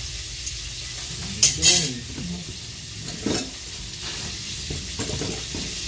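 Steady hiss with two short clatters, about a second and a half in and again a little after three seconds, as stainless serving utensils are handled.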